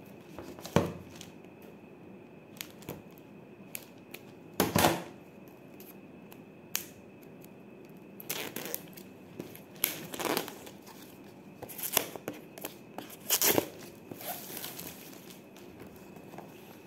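Clear plastic shrink-wrap being torn and peeled off a cardboard retail box, crinkling in short irregular bursts as the box is turned in the hands. The loudest tear comes about five seconds in.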